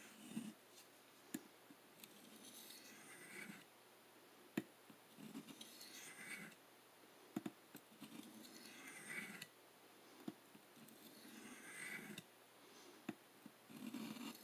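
Faint, slow strokes of a CPM M4 steel knife blade drawn across a large black Arkansas honing stone: about five soft scrapes, one every two to three seconds, with a few light clicks between them. This is the last, finest stone, polishing the edge.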